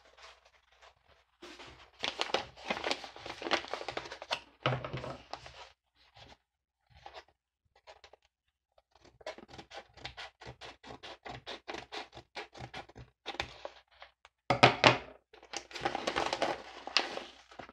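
Padded paper mailer envelope crinkling as it is handled, then cut open with scissors in a long run of quick snips, followed by louder crinkling and tearing as it is pulled open.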